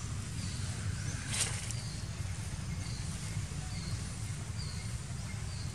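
Outdoor ambience: a steady low rumble with short, high chirps repeating about once a second, and one brief rustle about a second and a half in.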